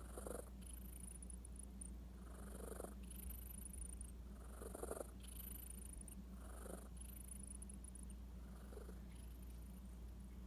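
A sleeping cat with lymphoma breathing, each breath audible as a noisy sound, about one every two seconds, over a steady low rumble.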